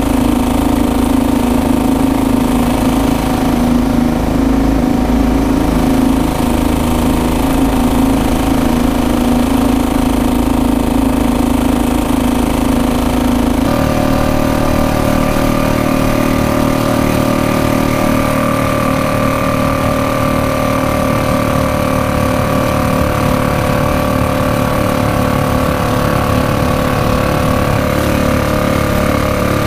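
Small gasoline outboard motor on a kayak running steadily. About halfway through, the sound changes abruptly from a lower pitch to a higher one.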